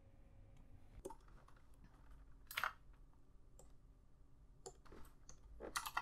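Faint computer mouse clicks, a handful spaced unevenly over several seconds, the loudest about two and a half seconds in, over low room tone.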